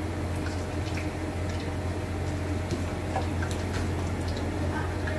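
Meat frying in oil in a pan, with scattered pops and crackles and the light clicks of metal tongs turning the pieces, over a steady low hum.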